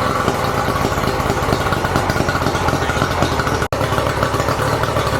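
Yamaha outboard motor running steadily at high idle on Seafoam poured into its fuel filter, the first run of a shock treatment to clean carbon out of the carburetors. The sound drops out for an instant just past halfway.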